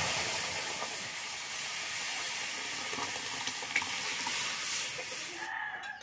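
Hot oil in a karahi hissing and sizzling as water and washed red lentils are poured in, a steady hiss that slowly dies down, with a few small clicks, and cuts off just before the end.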